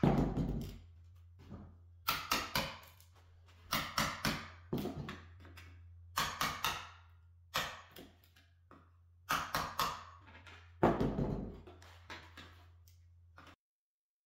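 Claw hammer striking a pry bar driven under old wooden tack strip to pop it off the concrete subfloor: sharp metal knocks in quick groups of two to four, with short pauses between groups. The sound cuts off suddenly near the end.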